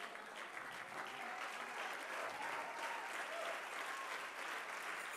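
A congregation clapping steadily, with a few faint voices calling out.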